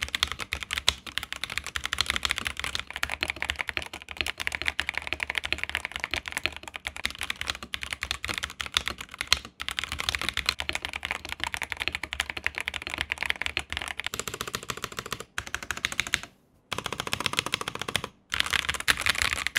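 Fast, continuous typing on a Zifriend ZA68 mechanical keyboard, a dense run of key clacks in a typing sound test, broken by a few brief gaps where the clips change. It is a before-and-after comparison of the stock board and the board modded with polyfill case foam, tape mod, PE foam and lubed stabilizers.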